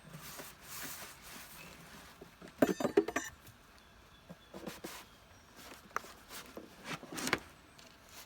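Wooden beehive boxes and frames being handled: scrapes and knocks, with a burst of rapid clicking knocks about three seconds in and another sharp knock around seven seconds.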